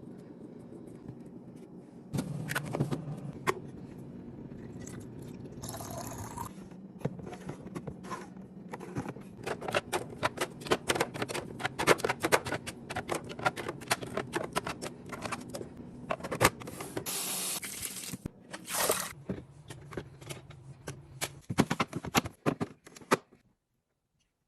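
Kitchen items being handled and set down, with many light clicks and knocks over a low hum and short hissing bursts, like things being pulled out and placed while a fridge is organized. The sound cuts off abruptly near the end.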